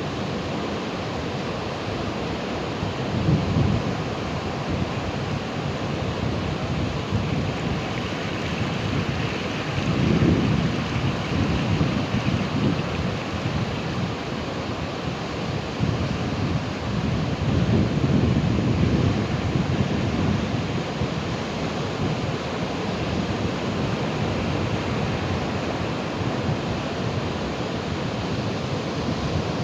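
Ocean waves breaking: a steady rush of surf, with a few heavier, deeper surges as bigger waves come in.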